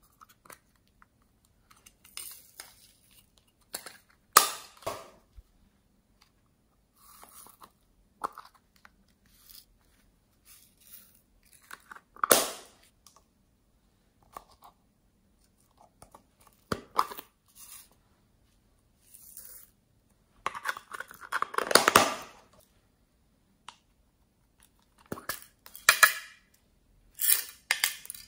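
Hands handling and opening small plastic toy cases over a glass dish of slime: scattered plastic clicks and taps, one sharp snap about twelve seconds in, and a denser two-second stretch of scraping and rustling a little past the middle.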